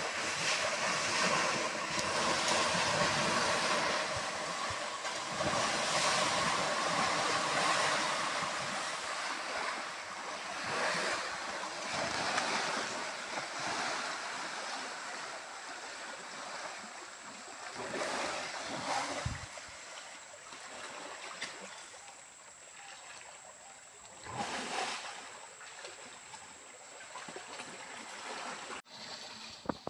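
Water splashing and churning in surges as wild elephants fight and swim in a muddy stream. It is loudest for the first several seconds, with further surges later.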